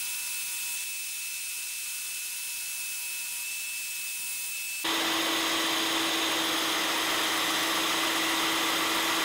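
Small band saw running and cutting a small wooden bow tie spline blank by hand, a steady motor whine with blade hiss. It jumps louder about five seconds in.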